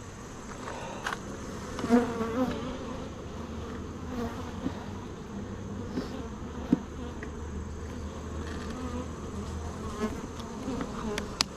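Honeybees buzzing steadily around an opened hive, with wavering overlapping tones from many bees in flight. A few sharp clicks sound through it, the loudest near the end.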